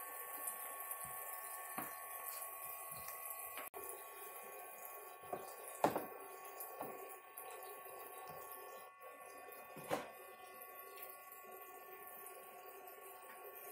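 Toy kitchen sink's small electric pump running with a steady whine while its faucet trickles water, with a few knocks and splashes as a macaque handles cups and toys in the water, the loudest about six seconds in and again near ten seconds.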